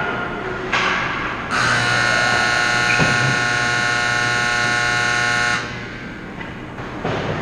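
Ice rink's electric horn sounding one steady blast of about four seconds, starting a second and a half in: the end-of-period horn closing the second period.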